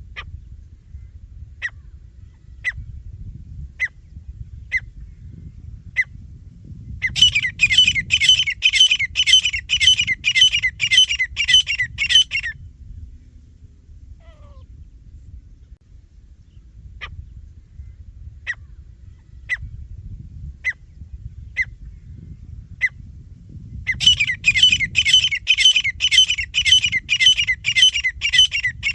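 Francolin (teetar) calling: single short, sharp notes about a second apart, then a fast run of loud, rapidly repeated calls lasting about five seconds. The pattern comes twice, over a low background rumble.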